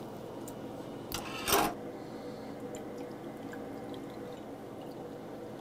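Whisky poured from the bottle into a glass mug of ice, over a steady background hum of the grill. About a second and a half in there is one short, loud noise.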